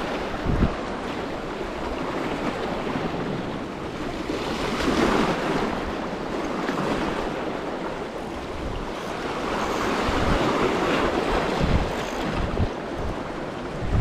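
Sea surf washing in and drawing back, swelling louder about five seconds in and again near ten to twelve seconds, with wind buffeting the microphone.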